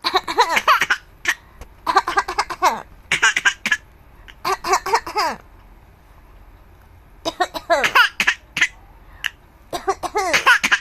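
A seven-month-old baby laughing in about six bursts of quick, pulsing squeals that fall in pitch, with short sharp sounds between the bursts. The laughter is set off by someone coughing.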